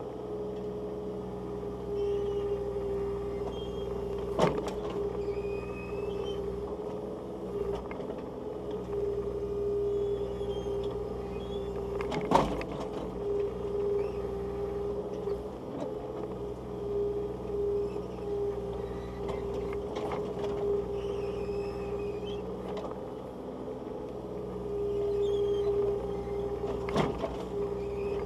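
Bobcat compact excavator's diesel engine running steadily with its hydraulics working the boom and bucket as it digs wet mud. Three sharp knocks come through the drone, the loudest a little before halfway through.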